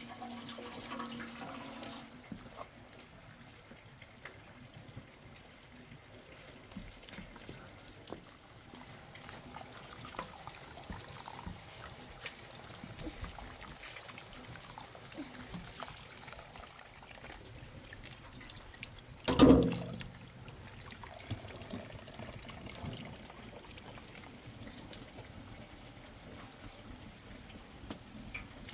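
Rice being washed by hand in a plastic basin of water: water sloshing and trickling as the grains are stirred, with small scattered clicks. One sharp, loud knock about two-thirds of the way in.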